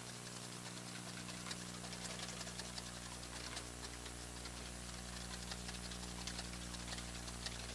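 A wire whisk clicking rapidly and irregularly against a stainless steel bowl, beating egg yolk and oil into a mayonnaise emulsion for aioli. The clicks start about a second in, over a steady low hum.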